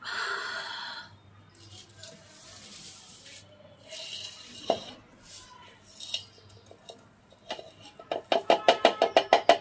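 Stainless-steel mesh sieve of crushed naphthalene granules being shaken and handled, with rustling and one sharp knock about halfway through. About eight seconds in, the sieve is tapped rapidly, about five metallic, ringing taps a second, to knock the fine powder through the mesh.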